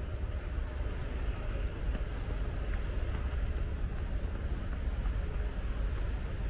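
Steady outdoor city ambience: a low rumble with a fainter hiss, from traffic and wind.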